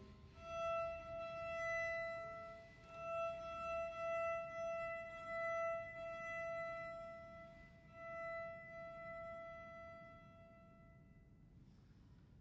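Violins holding one high, quiet note that swells and eases several times, then dies away about a second before the end.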